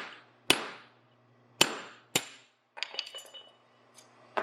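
Three sharp hammer blows on steel, the last two about half a second apart, driving a stuck drift out of the eye of a freshly forged hammer head. They are followed by a quick run of lighter metallic clinks with a brief ring.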